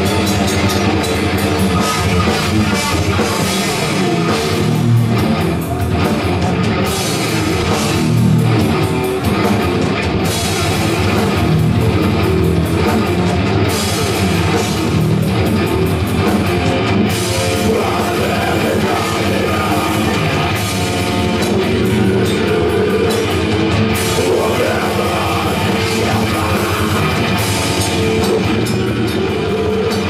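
Live rock band playing loudly and without a break: drum kit and electric guitars.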